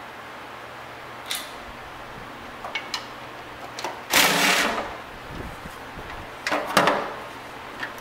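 A power ratchet spinning out oil pan bolts in two short bursts, about four seconds in and again a couple of seconds later, with light clicks and taps of the tool and bolts in between.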